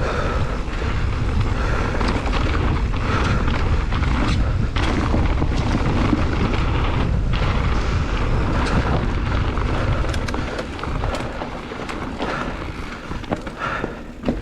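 Loud low rumbling, buffeting noise with scattered knocks and clicks, dropping in level about ten seconds in.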